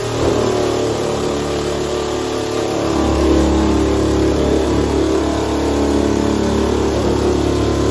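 Parkside electric nibbler running as it cuts through the van's sheet-steel side panel: a steady motor sound with a busy mechanical chatter. The sound grows fuller and deeper about three seconds in.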